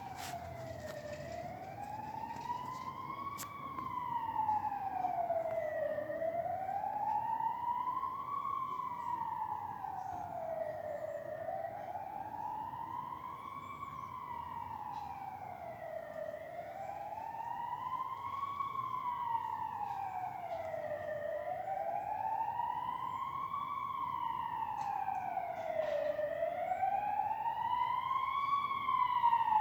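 Police car siren in a slow wail, rising and falling about once every five seconds, growing louder toward the end as it comes closer.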